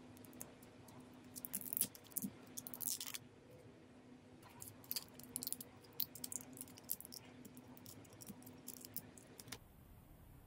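Close-up handling of a lip liner pencil and its plastic cap: a run of small, irregular clicks and crinkles, densest and loudest about two to three seconds in, over a faint steady hum. The handling noise stops abruptly shortly before the end.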